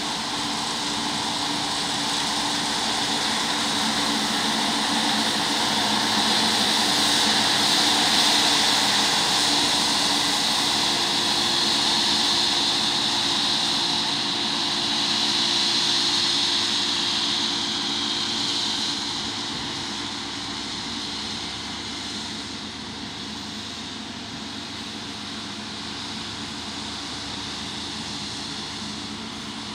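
Combine harvester running steadily: a held engine hum under a strong hiss. It grows louder over the first several seconds and eases off after about twenty seconds.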